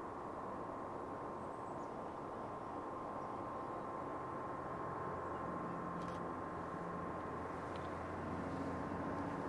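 Faint low drone of a freight train's diesel locomotives working uphill, building from about halfway through, under a steady hiss and a thin constant high tone.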